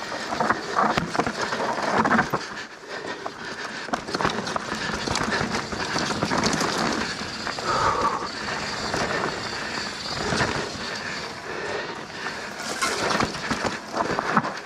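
Mountain bike running fast down a dirt and rock trail: tyres on dirt and rock with a constant clatter of chain and frame over the bumps.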